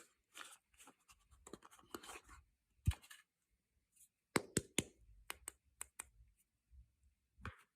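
Hands handling bars of soap and their packaging: scattered light clicks, taps and scratches, with a sharper knock about three seconds in and a quick run of clicks near the middle.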